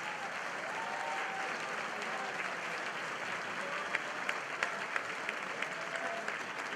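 Audience applauding steadily, with a few voices calling out among the claps.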